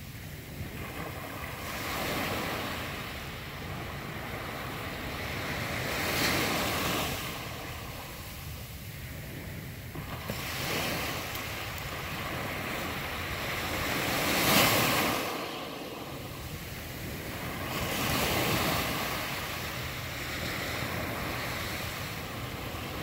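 Small ocean waves breaking and washing up a sandy beach, each wash swelling and fading about every four seconds, the loudest a little past halfway.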